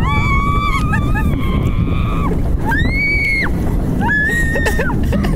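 Riders on a bobsled roller coaster screaming: several long, high, held shrieks one after another over the steady low rumble of the ride running along its track.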